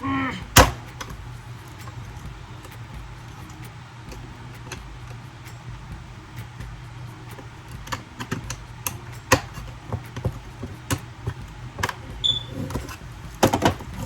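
Scattered clicks and taps of small plastic containers and supplies being handled and set down, with a denser run of clicks near the end, over a steady low hum.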